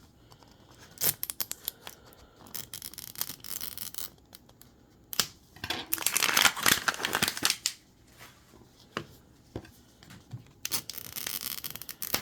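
Plastic packaging of a Mini Brands capsule ball being handled and torn open: scattered clicks and crinkles, with two longer rasps of tearing plastic, the louder about six seconds in and another near the end.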